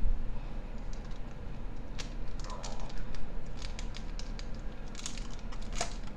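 Light clicks and taps of a plastic instant-noodle cup and its lid being handled, scattered at first and coming in a quicker run in the second half.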